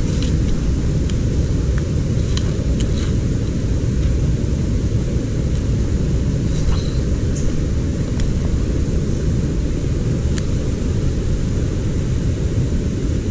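Steady low rumble of a small rocky stream's rapids running over rocks, with a few faint clicks scattered through.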